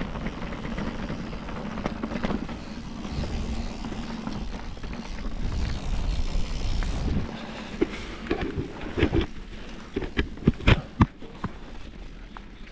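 Mountain bike on Maxxis Forekaster tyres rolling over a muddy gravel track, a steady rumble of tyre and wind noise. From about eight seconds in, a quick run of sharp knocks and rattles from the bike as it goes over rough ground.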